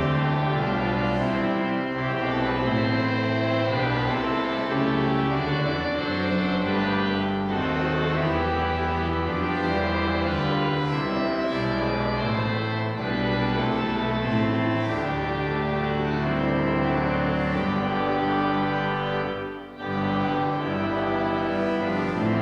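Organ music: slow, held chords that change step by step, with a brief break a little before the end.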